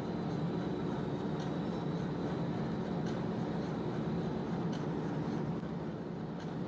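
1L532 vertical turning lathe (vertical boring mill) running steadily while it machines a radius, with the cutter working the rotating workpiece: an even machine hum with faint scattered ticks.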